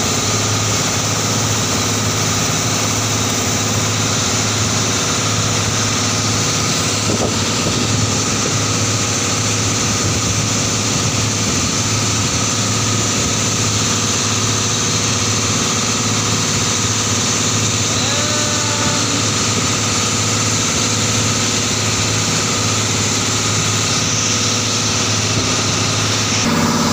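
Outrigger boat's engine running steadily under way, with the rush of water and spray along the hull.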